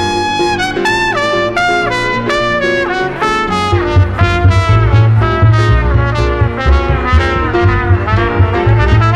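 Live jazz: trumpet playing a melodic solo line over piano chords, moving into quicker notes, with plucked double bass notes coming in about three and a half seconds in.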